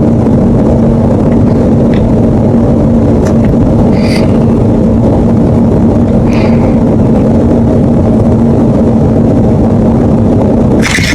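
A loud, steady mechanical rumble with a constant hum, with two faint short squeaks about four and six seconds in. It changes abruptly just before the end.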